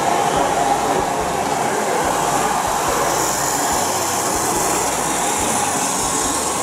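On30 gauge model train running on the layout, a steady rolling noise of wheels on track.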